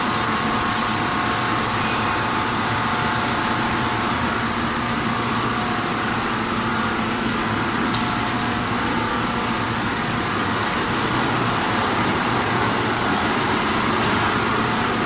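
Snack seasoning drum machine running: a steady mechanical hum with a few light ticks near the start and again near the end.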